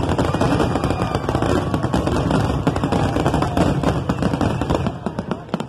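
Fireworks barrage: many aerial shells bursting in quick succession, a dense rapid run of bangs and crackles that thins to a few separate reports near the end.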